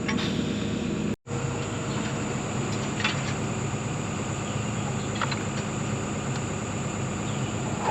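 Tracked excavator's diesel engine running steadily, with a high, even insect drone above it. The sound cuts out completely for an instant about a second in.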